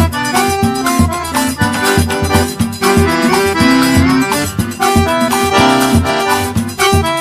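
Upbeat background music led by an accordion, with a steady bouncing beat, in the style of forró or festa junina music.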